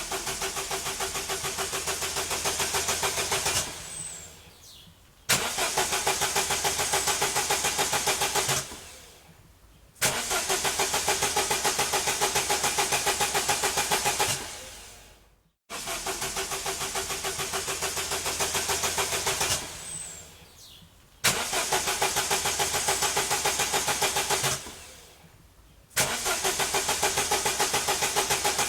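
A car's starter cranking the engine in about six attempts of roughly four seconds each: a rapid, even pulsing that winds down at the end of each attempt, with short pauses between. The engine never catches: it cranks but fails to start.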